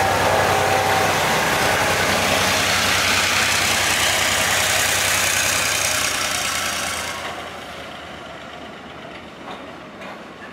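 A train running by loud and close, with a steady engine-like drone, then receding and fading away about seven seconds in.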